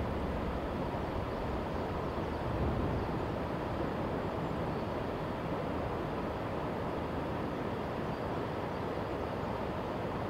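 383 series electric train running, a steady rumble of wheels on rail heard from far off.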